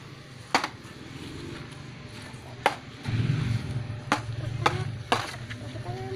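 Several sharp, separate clicks over a low, steady hum that gets louder about halfway through.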